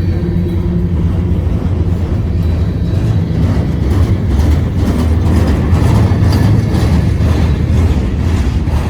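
A long freight train's cars rolling past, a steady low rumble with a run of clicks and knocks from about three seconds in.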